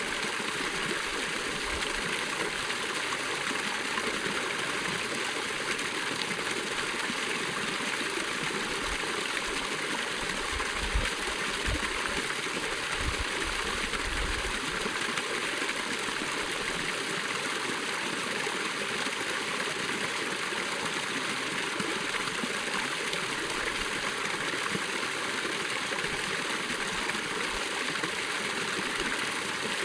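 Running water flowing and splashing steadily.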